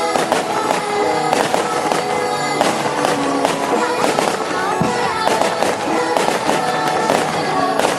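Fireworks bursting and crackling, many sharp cracks a second, over music with sustained melodic notes.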